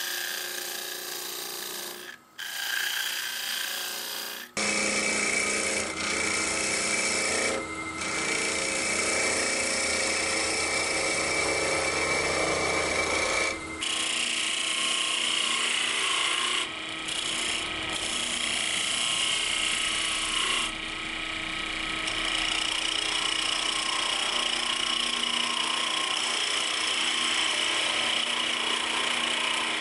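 Wood lathe running while a gouge cuts the spinning stem of a fir wood goblet: a steady motor hum under the hiss and scrape of the tool shaving the wood. The sound shifts abruptly a couple of times.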